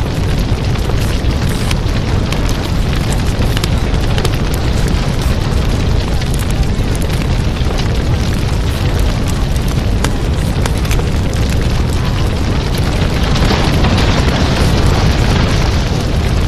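A steady, loud wall of rumbling noise with heavy bass, the masking layer of a subliminal track, with music faintly mixed beneath it. It gets a little brighter and louder near the end.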